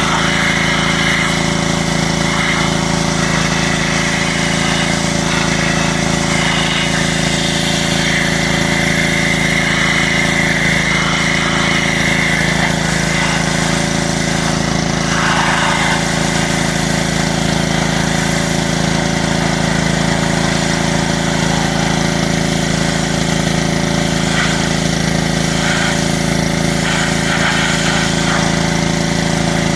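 Pressure washer's small engine running steadily.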